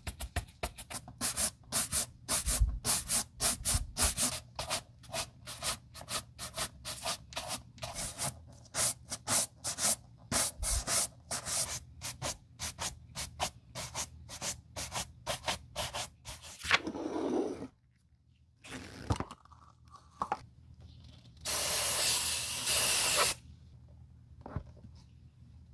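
A shoe brush is buffing the smooth leather of a loafer in quick, even back-and-forth strokes, for about sixteen seconds. After a pause, an aerosol spray can hisses for about two seconds.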